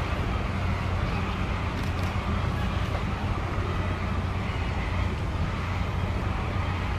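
Steady low background rumble with a hiss over it, even throughout, with no distinct event standing out.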